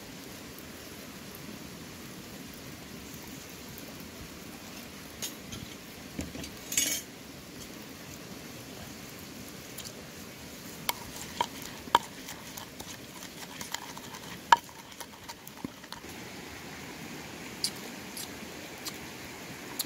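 Wooden mortar and pestle being handled while lime is squeezed into it: a short hissing burst about seven seconds in, then a scattered run of sharp light knocks and clicks, over a steady background hiss.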